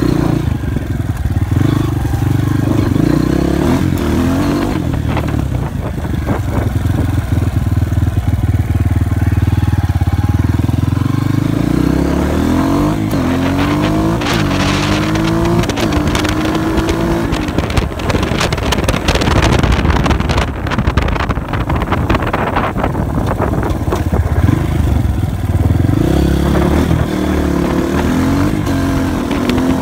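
Small dirt bike engine running under way, its pitch climbing in repeated steps around the middle and again near the end as the bike accelerates, with wind noise and rattle over the top.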